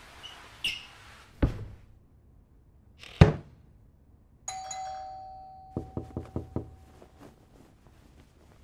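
Two heavy thumps, the second louder, then a doorbell chime rings and fades away over about two seconds. About a second after the chime, five quick knocks rap on the door.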